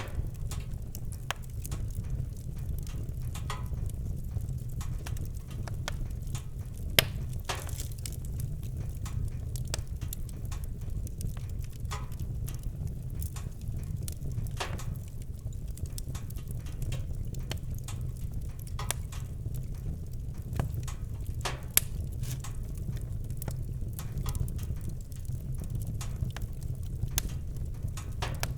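Campfire crackling, with irregular sharp pops and snaps over a steady low rumble. One louder pop about a quarter of the way in.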